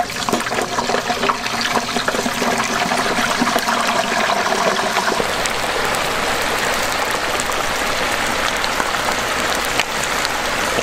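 Hot oil at about 300 degrees bubbling and sizzling hard in a propane turkey fryer pot as a whole turkey is lowered slowly into it. It is a steady, dense sizzle: the water in the bird boiling off on contact with the oil.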